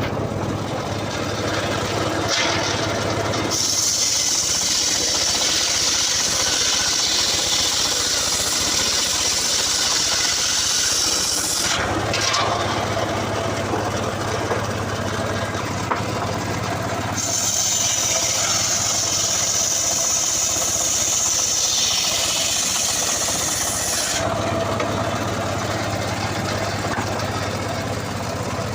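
Engine-driven homemade circular saw running steadily and ripping through a coconut palm log twice, each cut a long, high, hissing rasp of the blade in the wood over the engine's steady hum.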